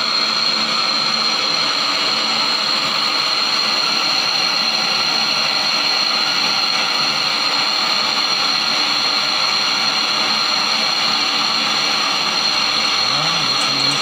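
MAPP gas torch flame hissing steadily as it heats the evaporator's copper tubing to braze a refrigerant leak shut.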